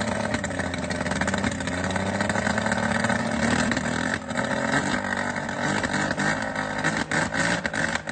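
An engine running steadily, its pitch wavering slightly up and down.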